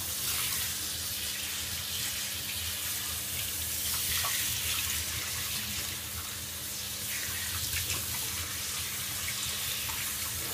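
Handheld shower head spraying water onto a dog's wet chest and fur: a steady hiss of running water with no breaks.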